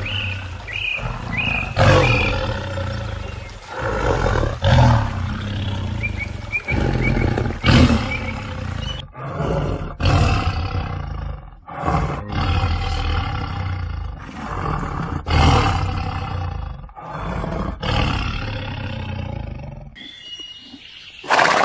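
Tigers roaring and growling in a long series of rough calls, one every second or two. The calls die down near the end and a horse's neigh breaks in at the very close.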